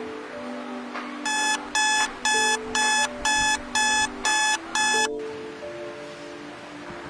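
Smartphone alarm going off: eight short, high beeps, about two a second, starting about a second in and stopping after about four seconds. Soft background music plays underneath.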